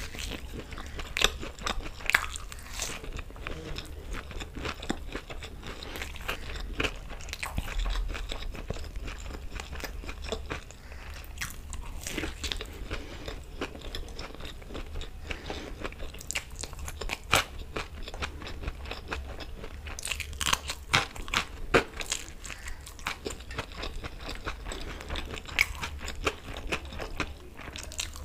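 Close-miked eating sounds of a person chewing a hand-fed mouthful of chicken curry, rice and fried gobi pakoda: wet chewing, lip smacks and crunching, in many short irregular clicks.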